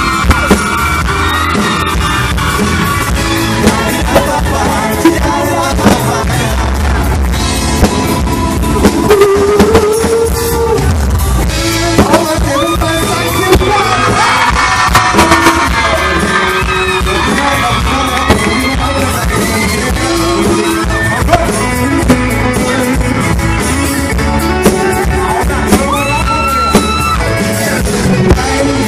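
Live band performing loudly: male voices singing with guitar accompaniment and a steady beat.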